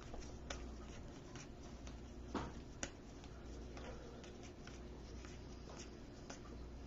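Trading cards being sorted through by hand: faint light clicks and rustles, with two sharper clicks about two and a half and three seconds in.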